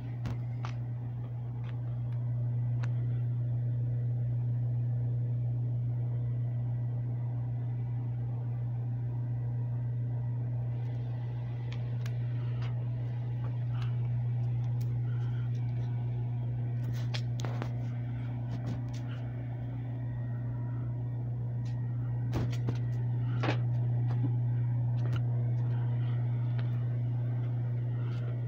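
A steady, low mechanical hum that holds one pitch throughout, with a few faint scattered clicks and taps.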